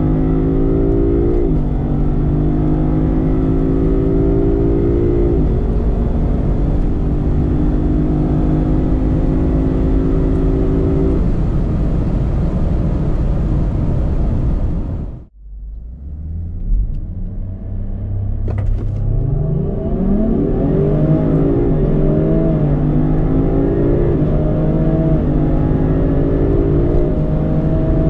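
Sports car engine accelerating hard, its pitch climbing and then dropping back at each upshift of the automatic gearbox. About halfway through the sound cuts off abruptly. The engine then launches again from low revs and climbs quickly through several gears.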